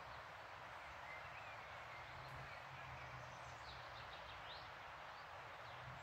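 Steady rushing of a river, faint, with a few soft bird chirps and short downward-sweeping calls in the middle.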